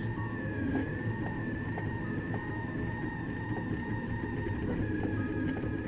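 Dagoma Neva 3D printer running: a steady high whine that wavers slightly in pitch over a low hum, with faint light ticks.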